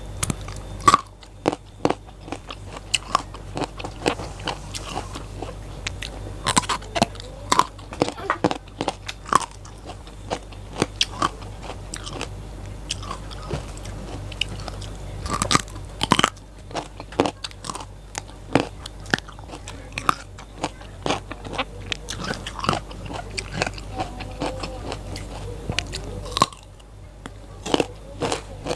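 Close-up crunching bites and chewing of raw lalapan vegetables such as leunca berries, raw papaya stems, eggplant and long beans: many sharp, irregular crunches with chewing between them.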